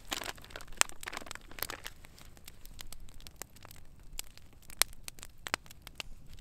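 Wood campfire crackling with irregular sharp pops, with some rustling and handling noise in the first two seconds.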